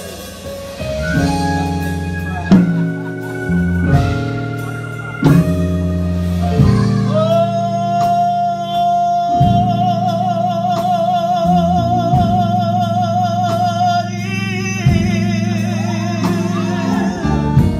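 Live gospel singing: a solo voice over sustained keyboard and bass accompaniment. About seven seconds in, the singer holds one long high note with wide vibrato for several seconds.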